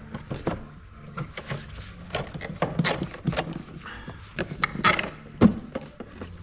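Rubber air intake hose and plastic ducting being worked loose by hand in a car's engine bay: irregular clicks, knocks and rustling, the loudest knock about five and a half seconds in.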